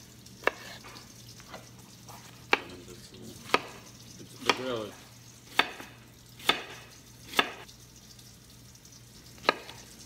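Chef's knife chopping zucchini and okra on a cutting board: about eight sharp chops spaced irregularly, roughly one a second, over a low steady hum.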